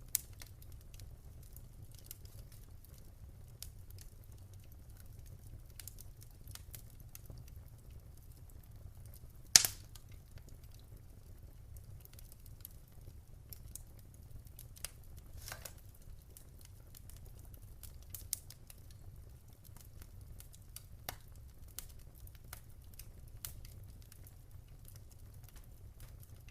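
Wood fire crackling, with scattered small pops and one sharp, louder pop about ten seconds in, over a steady low rumble.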